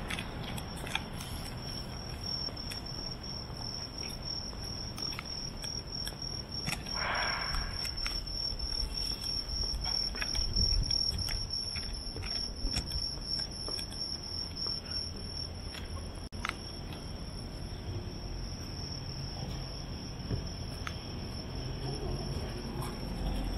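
Crickets singing in a steady, continuous high-pitched trill, over a low background rumble with scattered light clicks.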